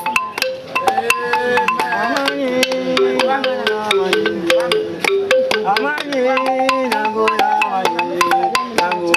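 Music: voices singing over fast percussion, with sharp strikes several times a second.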